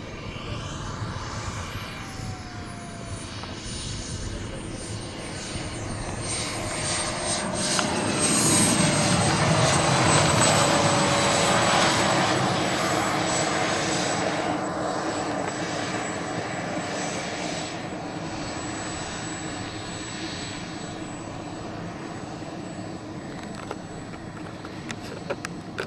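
JetCat P-220RXi turbine of a scale Fiat G91 model jet whining at low throttle on landing approach, its high pitch falling slightly over the first few seconds and then holding steady. The sound swells as the jet passes close about ten seconds in, then eases off as it rolls out on the runway.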